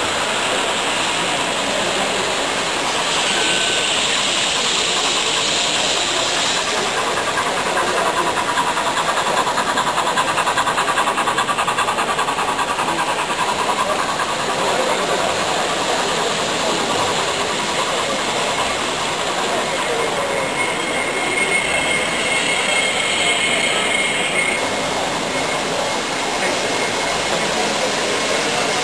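Märklin model trains running on the layout's track, a steady rolling clatter under the chatter of a crowded hall.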